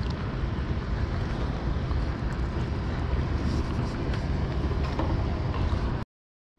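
Steady rumble and hiss of a small fishing boat's long-shaft engine running, mixed with wind on the microphone; the sound cuts off suddenly near the end.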